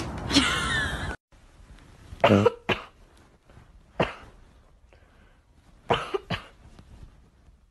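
A Boston terrier making short, sharp cough-like huffs, single or in quick pairs, a second or two apart. Before them a steady noise cuts off suddenly about a second in.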